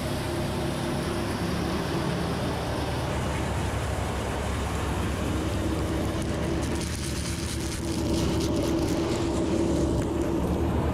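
Tractor-powered threshing machine running steadily as it threshes mustard, with the engine's steady hum underneath. From about six seconds in, a fine rattle is added as mustard seed pours out of the thresher into a tub.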